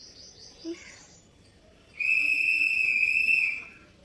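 A high, steady whistle-like tone held at one pitch for about a second and a half, starting about two seconds in and then fading out.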